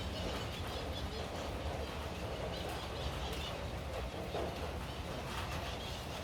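Rain falling steadily on rosemary leaves, a dense patter of small drops over a low rumble.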